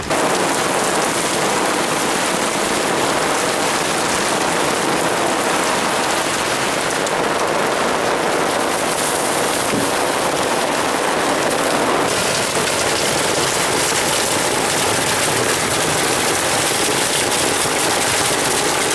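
Heavy rain falling and splashing, a steady dense hiss.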